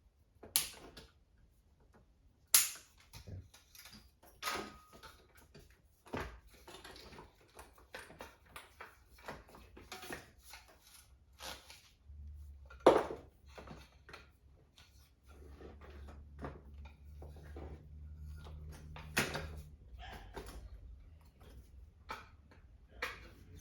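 Rummaging and handling noises: a run of irregular clicks, knocks and rustles, with sharper knocks about half a second, two and a half, thirteen and nineteen seconds in. A low steady hum comes in about twelve seconds in.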